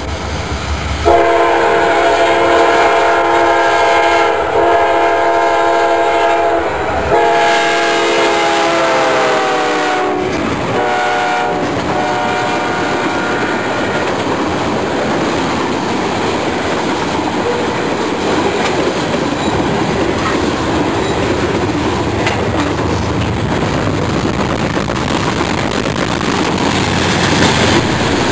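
CSX diesel freight locomotive sounding its multi-tone air horn in four blasts, long, long, short, long, the standard grade-crossing signal, with the pitch falling during the second blast as it passes. After the horn stops, a long train of open-top freight cars rolls by with steady wheel noise and clickety-clack over the rail joints.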